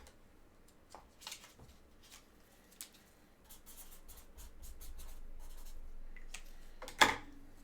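Soft paper-and-foil handling noises from a trading card pack being opened and its cards sorted: scattered small scrapes and clicks, a longer stretch of rubbing in the middle, and one sharp crinkling tear near the end.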